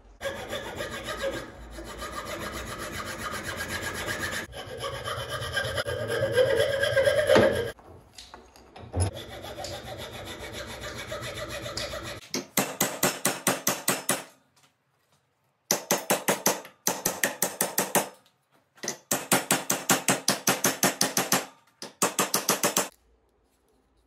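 For about the first twelve seconds, a steady grinding noise with a machine whir, loudest around seven seconds in. Then a hacksaw cuts a wooden block clamped in a vise in quick, even strokes, about five a second, in three runs with short pauses. It stops about a second before the end.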